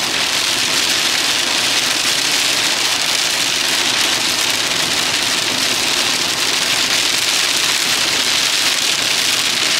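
Heavy rain on a moving car and its tyres hissing on the flooded road, heard from inside the cabin as a loud, steady hiss.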